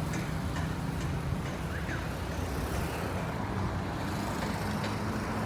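600-litre concrete mixer running steadily, its 10 hp motor driving the drum through a Mercedes differential reduction gear, giving a continuous low drone.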